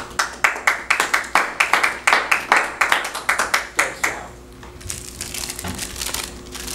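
Hand clapping, about four to five claps a second, stopping about four seconds in.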